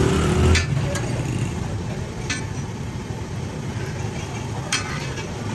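Street-stall background noise with a steady low rumble, like traffic, and about four sharp clinks of a metal spatula on the flat iron griddle.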